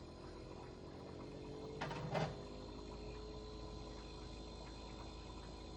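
Kenmore refrigerator's fan running with a faint steady hum while the compressor stays silent, not yet started after the inverter board swap. A brief knock about two seconds in.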